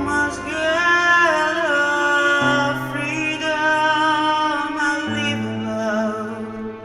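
Background music: a slow song with sung held notes over sustained chords.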